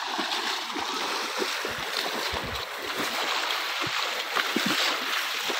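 Steady rushing of a shallow stream's water, with irregular soft thumps of footsteps as people wade and walk along the bank.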